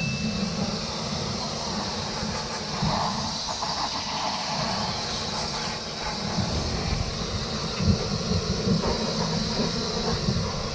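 Water jetting from a hand-held hose spray nozzle against a car's underbody and spattering down onto wet pavement, washing mud off, with a steady hiss and a low rumble throughout.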